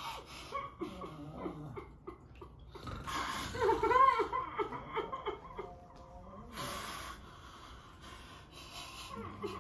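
A person breathing loudly with short voiced gasps and snorts, loudest about four seconds in.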